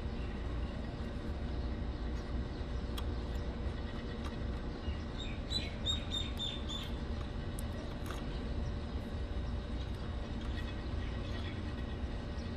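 Steady low background rumble with a few faint clicks of stiff wire leads being twisted together, and a quick run of short high bird chirps about six seconds in.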